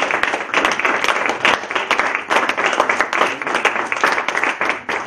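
Audience applauding: many people clapping at once, a dense, steady patter.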